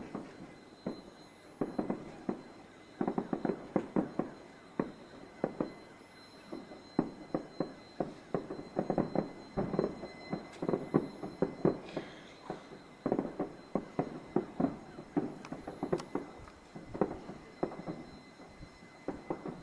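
Fireworks set off by a fireworks factory explosion, going off in a near-continuous run of sharp bangs and crackles that come in irregular clusters.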